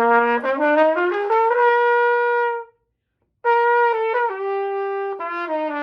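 Trumpet played in short stepwise notes climbing about an octave to a held top note, then after a breath starting back down the same steps.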